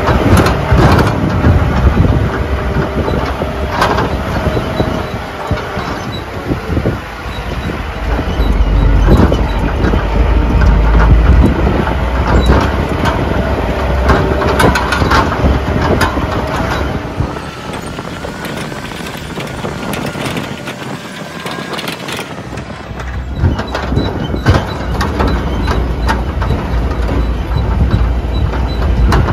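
Vehicle engine running and the body rattling and knocking as it drives over a rough dirt road, heard from inside the cabin. The engine and road rumble drop for several seconds about two-thirds of the way through, then pick up again.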